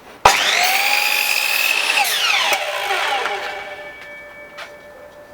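Scheppach HM100LXU 254 mm sliding compound mitre saw starting with a sudden whine that quickly rises to full speed, running for about two seconds while it cuts a shiplap board, then switched off and winding down in falling pitch over about two seconds.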